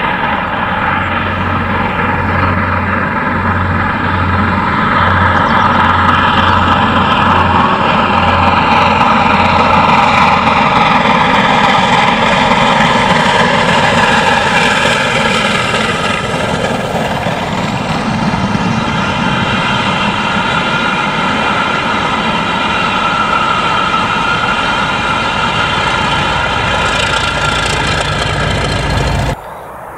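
Steam locomotive passing at speed with a train of coaches: loud, continuous exhaust and wheel noise on the rails, cutting off suddenly near the end.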